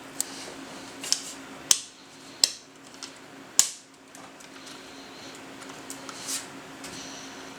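Several sharp, irregular clicks and clacks of small metal and plastic parts being handled as a CPU cooler's rear mounting bracket is fitted behind a motherboard. The loudest come about a second and a half and three and a half seconds in.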